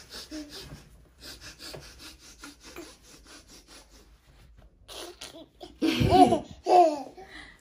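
Laughing: a run of quiet, quick breathy pulses, then a few louder pitched laughs from about five seconds in.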